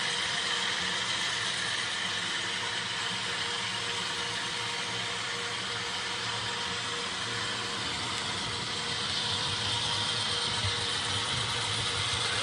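HO scale model train running on layout track: the steady whir of the locomotive's motor and gears with the rattle of the wheels rolling over the rails, growing a little louder near the end.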